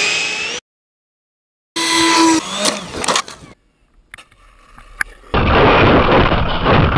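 Short cut-together clips of a 70 mm electric ducted-fan RC jet: the fan's whine sliding up and down in pitch, a brief break, then from about five seconds in a loud, even rush of wind noise and rumble through an onboard camera as the jet rolls through grass on landing.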